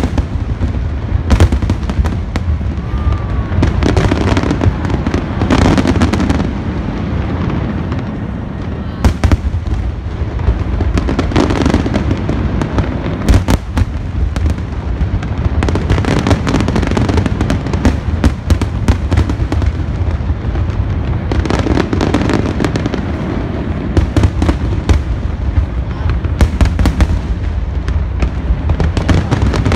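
Large aerial fireworks display: a continuous barrage of shell bursts and crackling, sharp bangs coming in dense clusters every few seconds over a steady low rumble.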